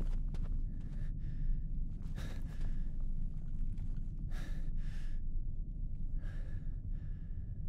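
A man breathing heavily in gasping breaths, about one every two seconds, over a steady low rumble.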